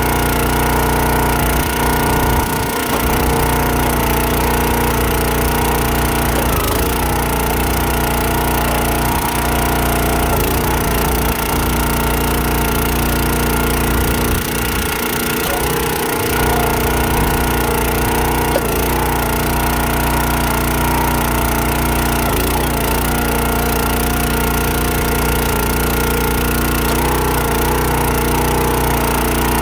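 Countyline 25-ton log splitter's small gas engine running steadily, its pitch dipping briefly every few seconds as the hydraulic ram works under load, with wood cracking as logs split.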